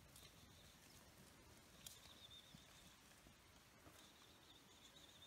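Near silence: faint open-air ambience, with a faint thin high tone twice, about two seconds in and again near the end.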